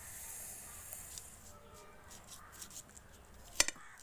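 Faint handling noise as a red dragon fruit is cut with a knife: a short high hiss at the start, then one sharp click about three and a half seconds in.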